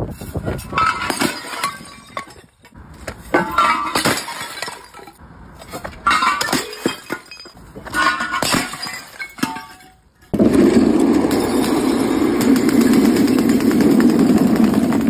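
Glass bottles and porcelain smashing: a series of crashes with clinking, ringing shards. About ten seconds in, a sudden steady loud noise takes over and holds to the end.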